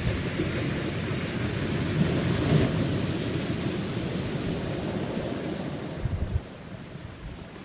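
Sea waves washing onto a rocky shore, one swelling to a peak about two and a half seconds in and then drawing back, with wind buffeting the microphone in a few low thumps near the end.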